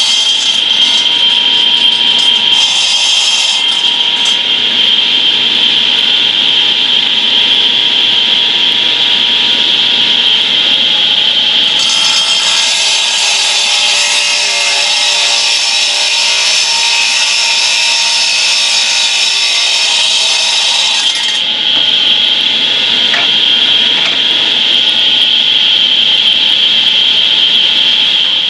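Concrete saw running flat out with a steady high whine, its blade grinding through concrete pavers; the cutting hiss grows harsher for several seconds in the middle, then eases.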